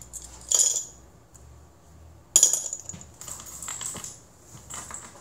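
Metal finger rings set down on a hard surface: a clink about half a second in, a louder clatter a little past two seconds, then several lighter clicks.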